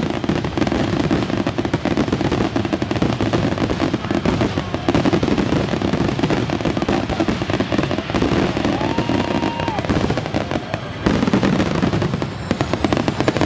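Fireworks finale barrage: a dense, unbroken run of rapid crackling and bangs, with a short whistle-like tone about nine seconds in.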